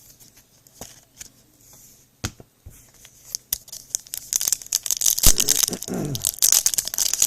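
Foil wrapper of a trading-card pack being torn open and crinkled. A few light clicks and taps come first, then dense crinkling from about four seconds in.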